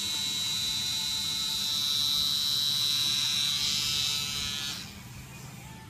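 Permanent-makeup tattoo pen running with a steady high-pitched buzzing whine. It switches off near the end.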